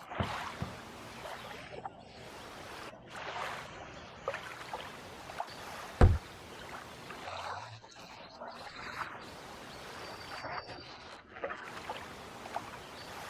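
Water sloshing and lapping in slow swells every few seconds, with small clicks and one sharp knock about six seconds in.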